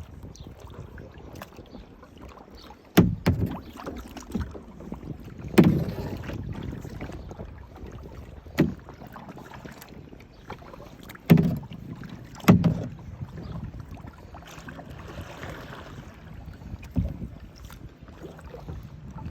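Kayak paddling: irregular knocks and thumps from the paddle against the hull, with water swishing and a low rumble of wind and water on the phone's microphone.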